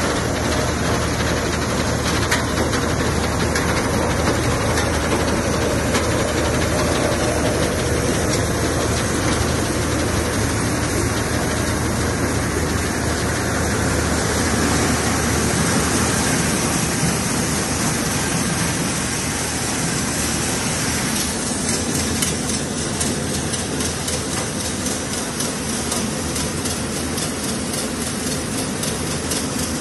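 Massey Ferguson 6028 tractor driving a tractor-mounted multi-crop thresher while it threshes: a loud, steady mechanical din over a low engine hum. The low hum weakens somewhat about two-thirds of the way through.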